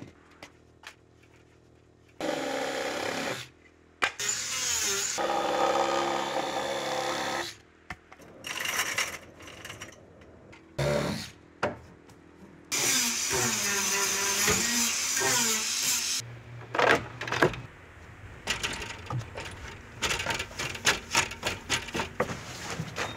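Power tools running in short spells that start and stop abruptly, one of them sliding down in pitch as it winds down, with sharp knocks and taps of work on timber in between.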